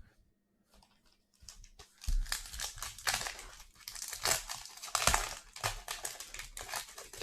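Plastic overwrap on a pack of trading cards being crinkled and picked at, a dense crackling that starts about one and a half seconds in. The wrap is stubborn to get open.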